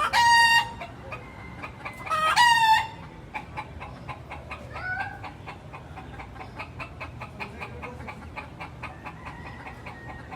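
Chickens calling: two loud pitched calls about two seconds apart near the start and a fainter one about five seconds in, over quick, soft, repeated clucking.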